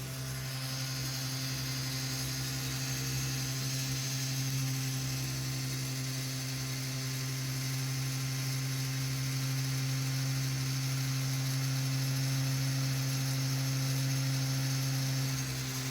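Electric heat gun running steadily under full load. It gives a strong electrical hum with an airy fan hiss over it.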